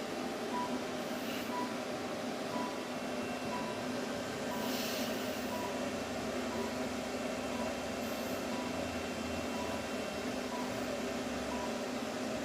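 Therapy laser unit giving short, faint beeps about every two-thirds of a second over a steady hum, the signal that it is emitting. A brief hiss comes about five seconds in.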